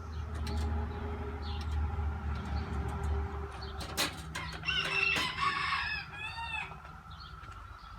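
A rooster crowing about five seconds in, followed by a few short high bird chirps, over a low rumble.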